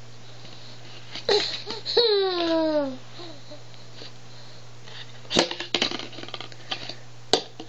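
An infant's voice: one falling, drawn-out vocal sound lasting about a second, about two seconds in. Later come two sharp knocks from the plastic stacking-toy rings being handled, over a steady low hum.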